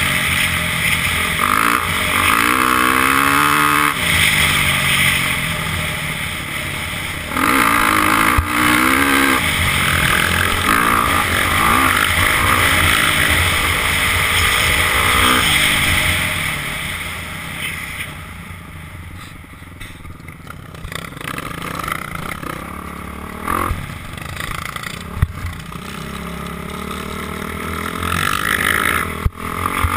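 Dirt bike engine revving up and falling back again and again under hard riding, heard from a helmet-mounted camera with wind rushing over the microphone. The engine eases off and goes quieter for a few seconds past the middle, then builds again.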